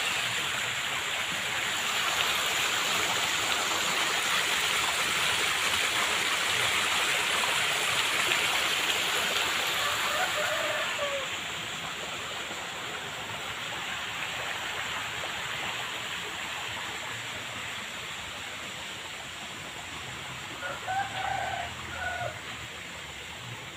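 Steady rush of flowing water, louder for the first ten seconds or so and then softer. A rooster crows near the end, with a shorter fowl call about ten seconds in.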